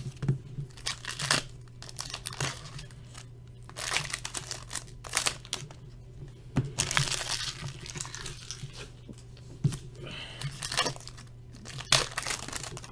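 Trading card pack wrappers being torn open and crinkled by hand, in irregular crackly bursts, over a steady low hum.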